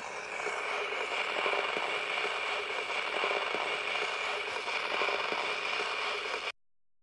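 Surface noise of a vinyl record under a turntable stylus: steady crackle and hiss with many small ticks, played through a small speaker, cutting off suddenly near the end.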